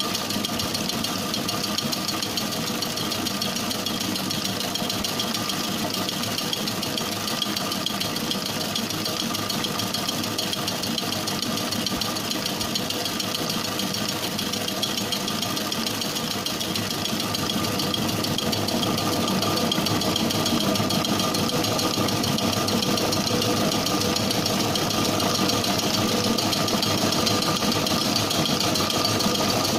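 Commercial bakery stand mixer running steadily, its motor and gearing humming with several constant tones as the beater whips sponge cake batter in a steel bowl. It grows a little louder past the middle.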